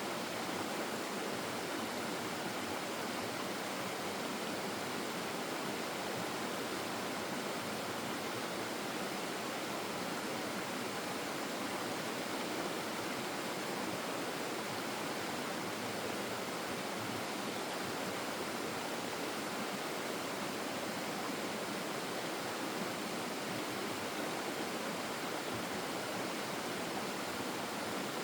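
Flowing stream water rushing in a steady, unbroken wash, with no separate splashes or calls standing out.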